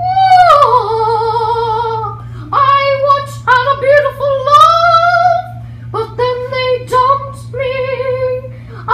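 One voice singing opera-style, a sad love song in long wavering held notes with short breaks between them, the first note sliding downward. A steady low hum runs underneath.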